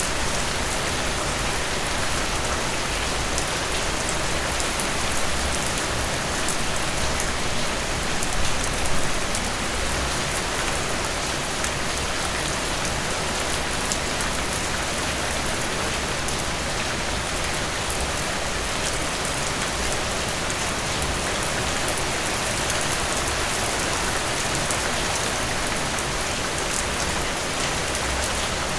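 Steady rain falling, an even hiss with scattered drops ticking, swelling briefly about eight seconds in.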